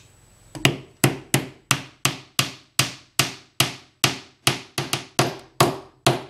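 Hammer blows driving a 1.5-inch aluminium rod down into a hole drilled in a wooden jig block: about fifteen even strikes, roughly three a second, each with a short ring.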